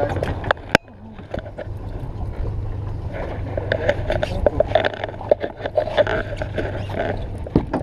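Fishing-boat ambience as a fish is reeled in: a steady low hum with wind and water noise, broken by scattered clicks and knocks from the rod, reel and deck, with a sharp knock just under a second in.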